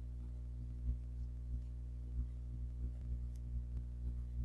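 Steady low hum with faint soft pulses recurring about every two-thirds of a second and a few faint ticks.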